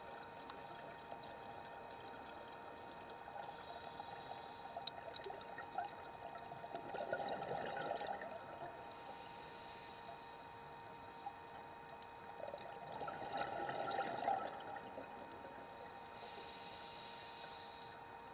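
A scuba diver breathing through a regulator, heard underwater: three short hissing inhalations alternate with two longer, louder bubbling exhalations about six seconds apart. A faint steady hum runs underneath.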